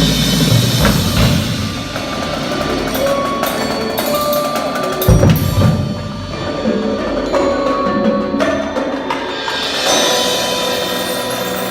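Indoor percussion ensemble playing: mallet keyboards ringing sustained notes over drum hits, with heavy low booms near the start and again about five seconds in.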